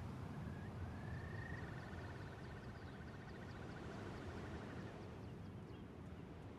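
Faint outdoor ambience with a low steady rumble. Over it comes a single high trilling call that rises briefly and then warbles for about four seconds, with a run of faint quick high ticks.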